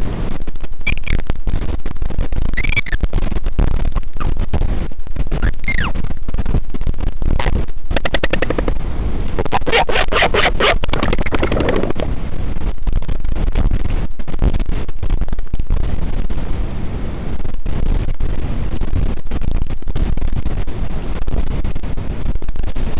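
Wind buffeting the microphone in a constant low rumble of irregular knocks. Over it come a few short high gliding calls from the northern royal albatross parent and chick at the nest, then about ten seconds in a quick run of clicks, about six a second, with a lower call.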